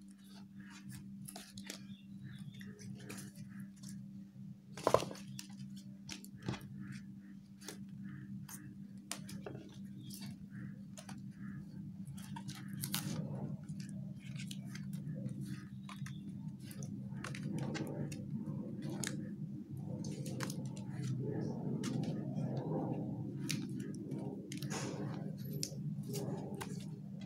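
Sheets of printed paper rustling, sliding and being laid down onto piles, with many small crisp paper sounds and one sharp slap about five seconds in, over a steady low hum.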